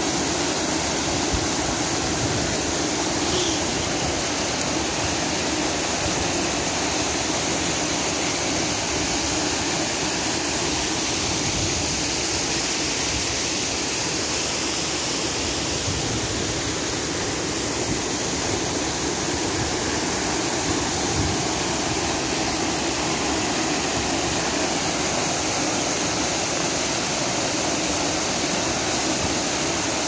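Artificial waterfall: water pouring down tall stone walls into a shallow pool, a steady rushing splash.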